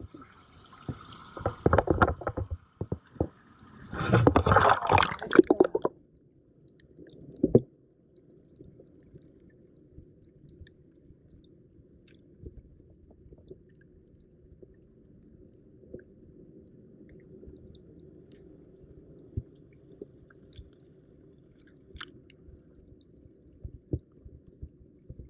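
Seawater splashing loudly around the microphone for the first six seconds. About seven seconds in it gives way to a muffled low rumble with scattered faint clicks, the sound of the microphone under water in the tide pool.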